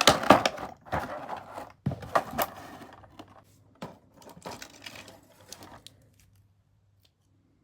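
Plastic action-figure packaging being handled and opened: irregular rustling and sharp plastic clicks and snaps that thin out and stop about six seconds in.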